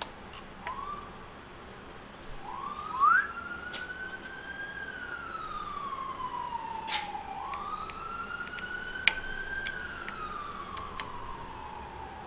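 A siren wailing, slowly rising and falling in pitch about every five seconds, with a short louder upward chirp about three seconds in. Scattered light metallic clicks of a hex key being worked on screws.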